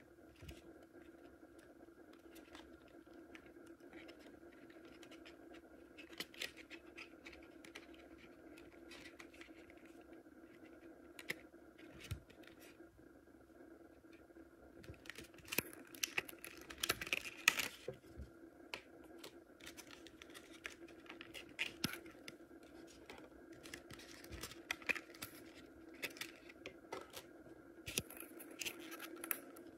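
Faint clicks and scratches of a clear plastic card insert being handled and lifted over a metal tin, over a steady low hum, with a busier patch of handling noise about halfway through.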